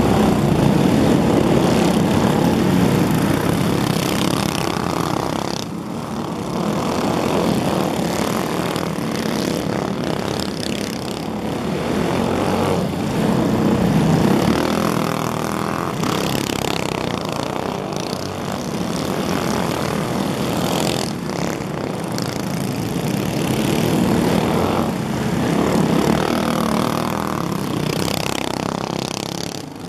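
Several go-kart engines buzzing at speed as the karts lap the track. The sound swells and fades every few seconds as karts pass close and pull away.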